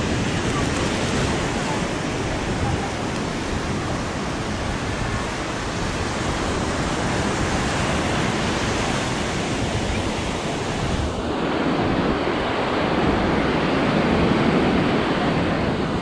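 Beach ambience: a steady wash of ocean surf mixed with wind on the microphone, swelling a little in the lower range about three-quarters of the way in.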